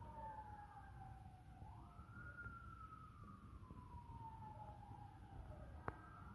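Faint siren wailing, its pitch falling slowly, rising quickly about two seconds in, then falling slowly again. A single sharp click near the end.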